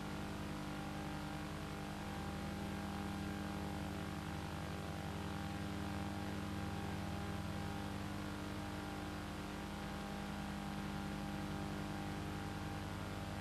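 A steady low hum with many overtones, unchanging throughout.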